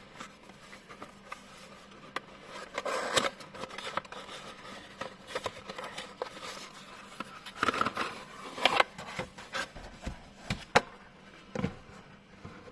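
Unboxing handling noises: irregular rustling, scraping and sharp clicks and taps as the sunglasses' packaging and case are handled, loudest about three seconds in and again around eight to nine seconds.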